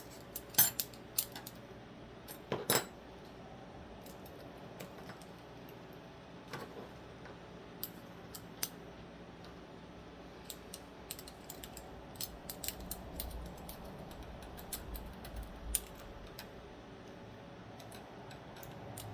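Irregular small metallic clicks and taps of folding-knife parts being handled and fitted during reassembly, the loudest few in the first three seconds and a busier run of light clicks later.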